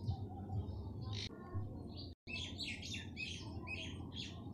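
Small birds chirping in the background: scattered short chirps, then a quick run of them in the second half, over a steady low hum. The sound cuts out for an instant about two seconds in.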